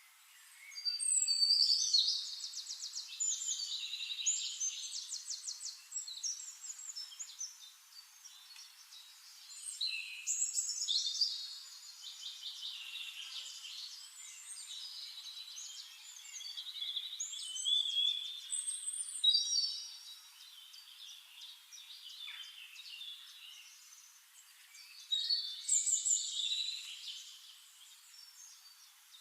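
A songbird singing long phrases of rapid trills and varied notes. The song comes in four louder bouts, about a second in, around ten seconds, around seventeen to nineteen seconds and near the end, with quieter song between them.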